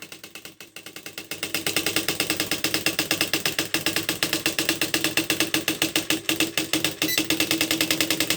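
Smith Corona 250 DLE electronic typewriter printing on its own: a rapid, even run of character strikes over a steady hum. The strikes grow louder over the first two seconds.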